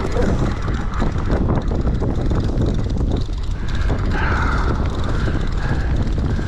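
Steady low rumble of the fishing boat's engine, with wind buffeting the microphone. Faint higher tones come in from about three and a half seconds in.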